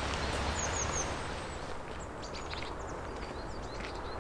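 Small birds giving short, high chirps, a quick run of three about half a second in and scattered notes later, over a steady outdoor hiss.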